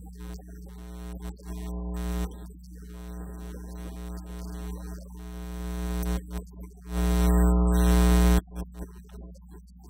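Soft, sustained keyboard music: held chords over a low drone, changing a few times and swelling to a louder chord about seven seconds in that cuts off a second and a half later.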